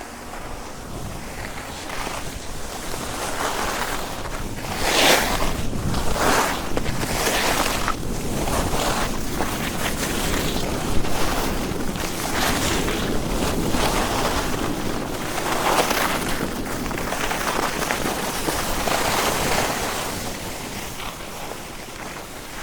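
Skis carving and scraping over packed snow on a downhill run, a hissing rush that swells with each turn, roughly once a second, and eases near the end.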